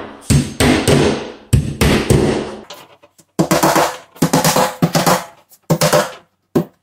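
Claw hammer tapping plastic wall clips for wire closet shelving into drywall: runs of quick sharp blows, a pause about three seconds in, then more runs of blows.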